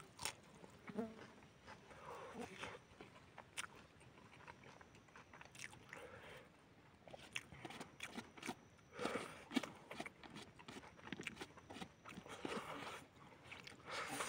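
A person eating noodles, with irregular chewing and biting sounds made up of short mouth clicks and wet smacks.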